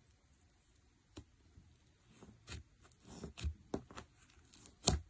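Fingers pressing into a tub of thick white slime, giving scattered sticky pops and crackles. They come sparse at first, then thicker and louder, with the loudest pop just before the end.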